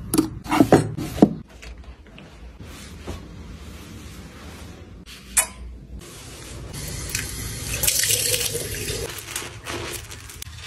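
A few sharp metallic clicks as metal bangle bracelets are set into a jewelry drawer, then water running from a bathroom tap into a sink during handwashing.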